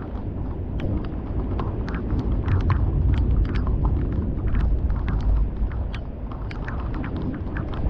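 Thunder rolling in a long low rumble that builds about a second and a half in, is loudest a few seconds in and then slowly dies down. Heavy raindrops tick irregularly on nearby surfaces throughout.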